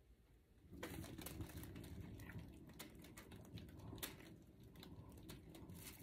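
Canvas spinner starting to turn about a second in, spinning a wet acrylic pour painting with a low rumble and a quiet, irregular pattering and ticking as flung paint lands on plastic sheeting.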